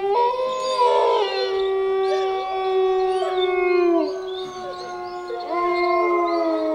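Canine howling laid over the play: several overlapping howls held on long, steady notes that drop away together about four seconds in. A fresh round of howls rises about a second and a half later.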